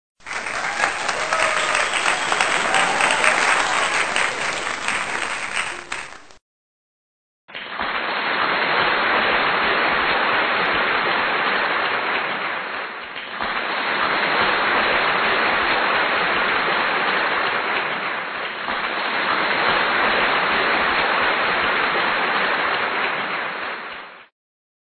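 Hot oil sizzling as pakoras deep-fry in a wok: a dense, steady crackling hiss that cuts off about six seconds in. After a second's gap, a similar hiss returns in three long swells and stops just before the end.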